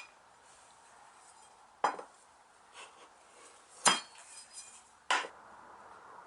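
Four sharp metallic clinks a second or two apart, each ringing briefly: steel tyre tools knocking against the steel clincher rim while a Model T tyre bead is worked on.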